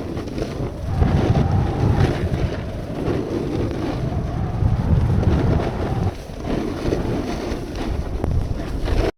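Wind buffeting the microphone during a snowboard run, a rough, gusting rumble that cuts off suddenly near the end.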